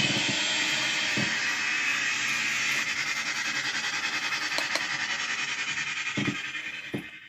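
Electric guitar fast-picked near the bridge, making a dense, hiss-like wash of noise with no clear notes, broken by a few low thumps. It cuts off abruptly near the end.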